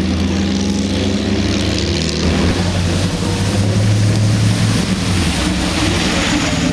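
1950s Jaguar racing car's straight-six engine running at low revs, its note climbing a little and then dropping back near the end. A hiss of wet-road spray comes up after about two seconds.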